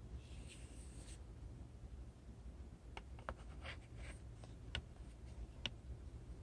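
A short hiss near the start, then a run of light clicks and scratches over a steady low hum.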